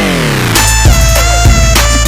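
Loud background music: a sweep of notes falling in pitch, then a deep held bass note under a steady beat.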